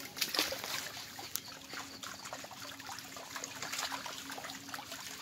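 Water splashing and dribbling as crowded fish thrash in a net trap and hands grab among them: many small, irregular splashes. A faint steady hum runs underneath.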